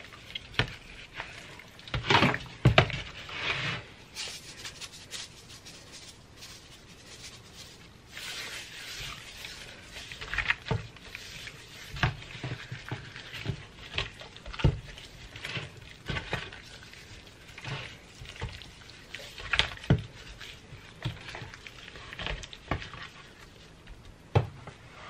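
Gloved hands rubbing and handling a raw, seasoned whole chicken on a metal sheet pan: irregular soft rubbing with scattered small clicks and knocks. The loudest knocks come about two to three seconds in.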